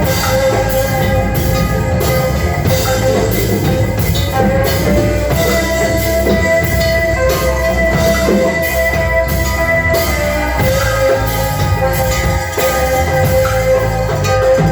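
Music: drums keep a steady beat of about three strokes a second under held instrumental notes.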